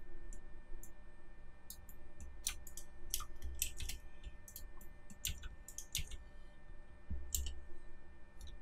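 Computer keyboard keys and mouse buttons clicking at irregular intervals in quick clusters of several clicks, over a faint steady electrical hum.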